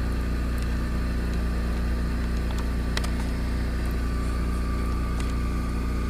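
A steady low mechanical hum, like an idling engine, with a faint click about three seconds in.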